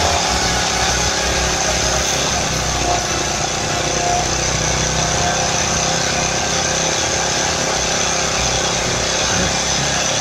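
Small ET1500L portable generator engine running steadily on LPG after being converted from petrol.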